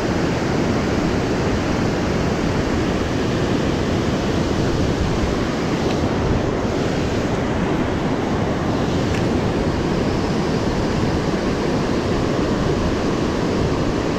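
Steady rush of whitewater pouring over a dam spillway and churning down the river.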